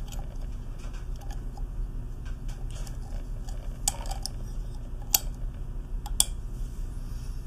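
Light clicks and taps of a check spring retainer being pressed down and turned into the brass body of a Watts 800M4 pressure vacuum breaker, with two sharper clicks about five and six seconds in. A steady low hum runs underneath.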